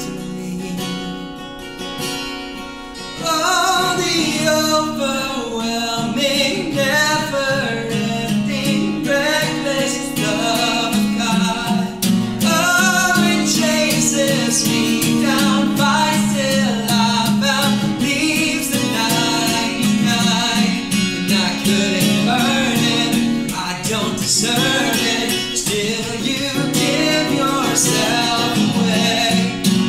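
A man and a woman singing an English worship song over a strummed acoustic guitar, the man leading. A quieter opening, then the singing and playing fill out and grow louder about three seconds in.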